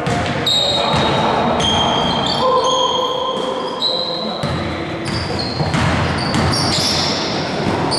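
Indoor basketball game: sneakers squeaking in many short high squeals on the hardwood floor, the ball bouncing on the court, and players calling out, with the echo of a large gym.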